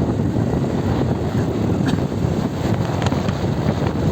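Steady riding noise from a moving motorcycle: engine running under wind rushing over the microphone.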